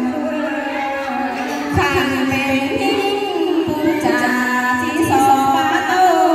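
A woman singing a Thai ethnic folk song (hát Thái) into a microphone, amplified through a PA speaker, over steady backing music; the melody is held in long, wavering notes.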